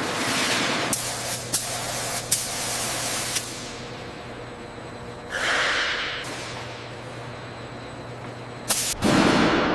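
Hissing bursts of spray with a few sharp clicks in the first few seconds, then a louder, heavier rush of hiss near the end.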